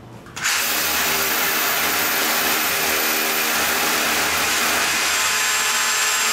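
Cordless rotary hammer drilling into a masonry wall, starting suddenly about half a second in and running steadily and loudly.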